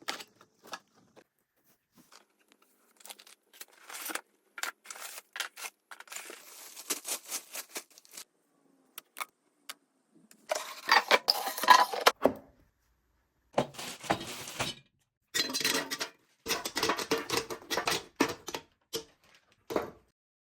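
Unboxing an air fryer: packaging being handled, rustled and torn open. There are scattered clicks and knocks, then several louder stretches of rustling from about halfway through.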